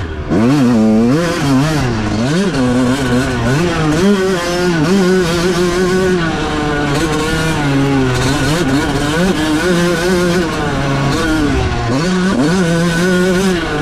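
A 1996 Honda CR125's 125cc two-stroke single-cylinder engine ridden hard, its pitch climbing and dropping over and over as the rider works the throttle and gears. It does several quick rev-and-drop cycles at first, then holds longer, steadier stretches.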